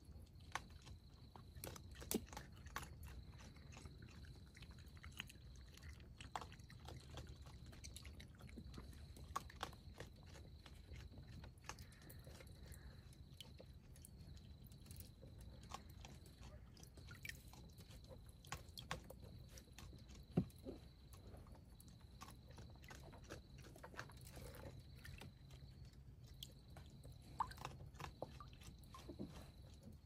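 Raccoon eating grapes: faint, scattered wet chewing and biting clicks with an occasional louder click.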